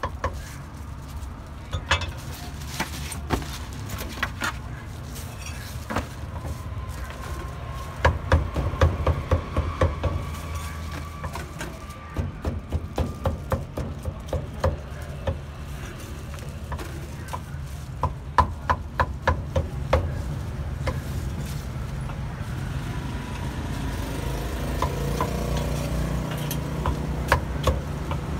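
A cleaver chopping on a wooden board in quick runs of strikes, about five a second, over a steady low hum of street noise.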